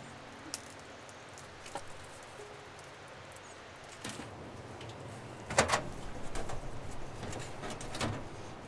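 Split firewood knocking against other logs and the steel firebox as it is loaded by hand into a small wood stove. There are a few light knocks early on, a loud clatter about halfway through, then more scattered knocks.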